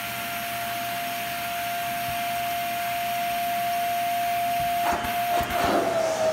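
Vacuum cleaner running through its wand, a steady high whine over a hiss of rushing air. About five seconds in the sound turns rougher, and near the end the whine wavers and dips in pitch as the cat's paws and head press over the nozzle and partly block the airflow.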